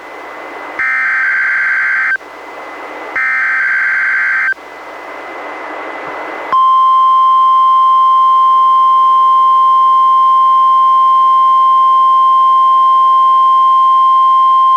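NOAA Weather Radio weekly test alert on a weather radio receiver: two more SAME header data bursts, each about a second and a half long with static hiss between them. About six and a half seconds in, the steady 1050 Hz warning alarm tone starts and holds, louder than the bursts.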